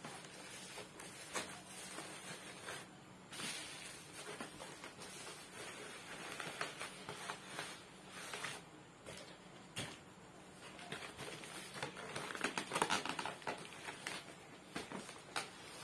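Plastic air-column cushion packaging crinkling and rustling as it is handled, a steady run of small crackles that grows busier and louder about three quarters of the way through.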